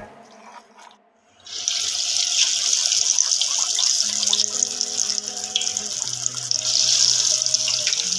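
Marinated fish pieces frying in hot oil in a pan: a steady sizzle full of small crackles and pops, starting about a second and a half in.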